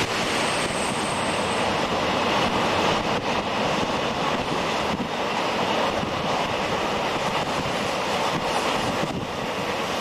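Passenger train cars rolling away along the rails, a steady noise without distinct clicks.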